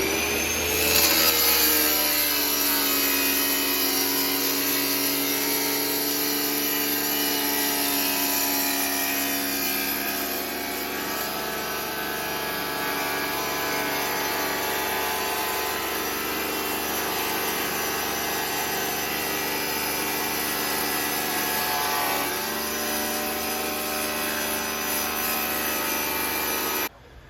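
Electric tile saw spinning up with a rising whine, then running steadily as it cuts a tile, its pitch dropping a little partway through as the blade takes the load; it cuts off abruptly near the end.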